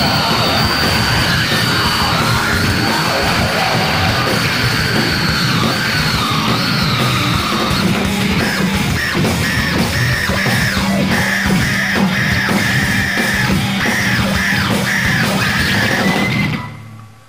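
Loud live heavy metal band playing: distorted electric guitars, bass and pounding drums, with high sustained tones over the first half and a choppy, rapidly repeated high note in the second half. The music cuts off abruptly near the end.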